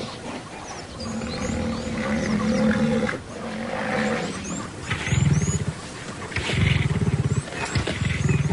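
Young lions growling: a long low growl, then three louder pulsing growls over the second half.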